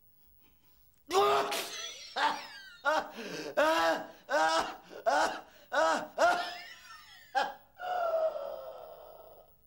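A man crying out in agony: a rapid string of short, strained cries, each rising then falling in pitch, ending in a long falling groan near the end. These are the death throes of a man poisoned by food from a tin.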